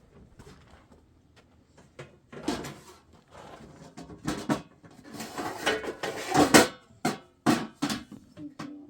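An irregular series of knocks and clattering handling sounds with scraping or rustling between them, growing busier and louder past the middle, with the loudest knocks near the end.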